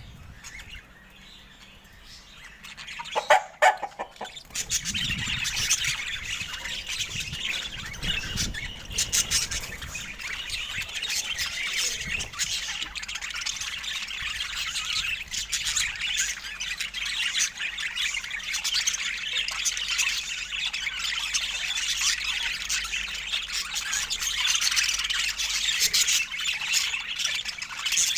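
Budgerigars chattering, a dense, continuous stream of chirps, warbles and squawks that starts about four to five seconds in. Just before it, a few loud sharp taps or clicks.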